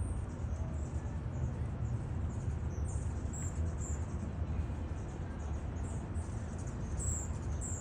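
Small birds chirping: short, high chirps scattered through the second half, over a steady low rumble.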